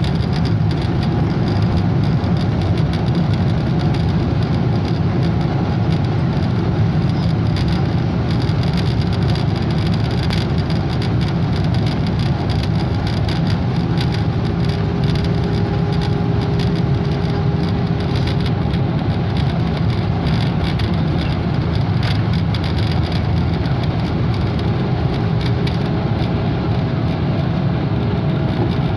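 Steady low rumble of a Boeing 777-200's jet engines, holding an even level throughout without building or falling away.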